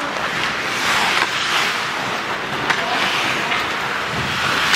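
Ice hockey game sound in a rink: a steady hiss of skates on the ice and crowd noise, with scattered sharp clacks of sticks and puck.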